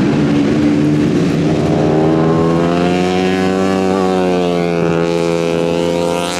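Racing 150 cc four-stroke underbone motorcycle engines running at high revs. Their pitch rises and then falls again around the middle.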